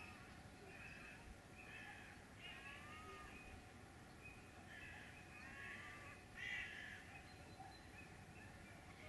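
Crows cawing faintly, a string of short harsh calls with a louder one about six and a half seconds in, over a low steady outdoor hiss.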